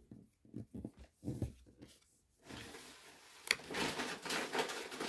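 Soft low puffs for about two seconds, then the rustle and crinkle of a foil booster pack and a stack of trading cards being handled, with two sharp snaps.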